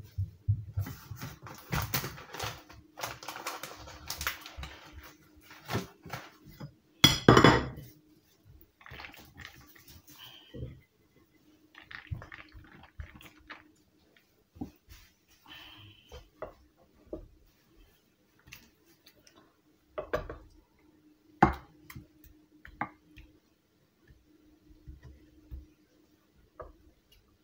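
Kitchen handling sounds as a lasagne is layered in a baking dish: scattered clinks and knocks of utensils against dishes, with the loudest knock about seven seconds in, over a faint steady hum.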